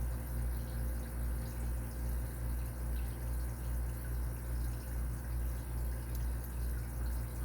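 Steady low hum that throbs about twice a second, with a few faint ticks of a lock pick working the pin stack of a padlock under light tension.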